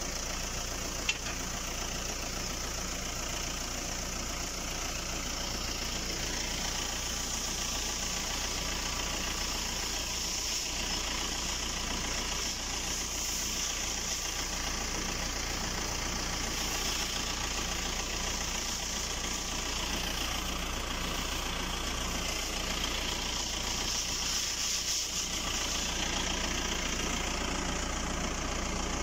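Tractor engine idling steadily, with a steady hiss over it and a single sharp click about a second in.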